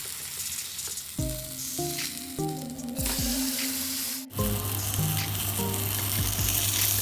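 Marinated chicken sizzling in oil on a hot grill pan, a steady crackling hiss with a brief break about four seconds in. Background music plays underneath.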